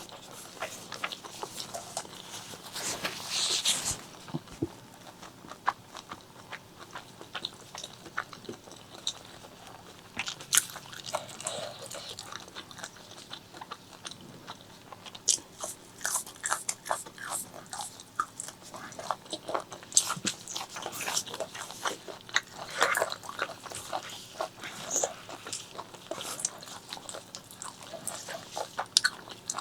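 Close-miked eating sounds of a person eating spicy pork leg curry with white rice: chewing and biting, heard as a dense, irregular run of short sharp clicks.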